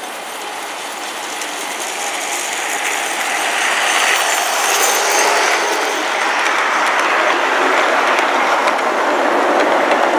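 G-scale model freight train, pulled by an Aristocraft 2-8-2 Mikado, rolling past on garden-railway track: a steady rattle of wheels on rails with fine clicks. It grows louder over the first few seconds as the cars come close, then holds.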